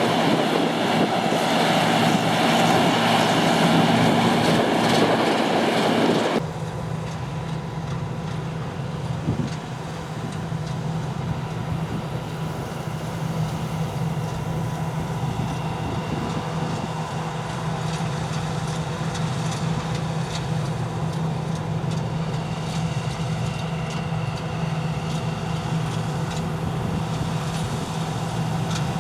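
Heavy farm machinery running with a steady diesel drone. About six seconds in, the sound changes abruptly from a louder, noisier rush to a quieter, even drone with a steady low hum.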